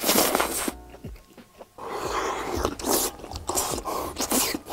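Close-miked mukbang eating sounds: a man biting into and slurping mouthfuls of stretchy melted cheese in noisy bursts, with a brief one at the start and a longer run from about two seconds in.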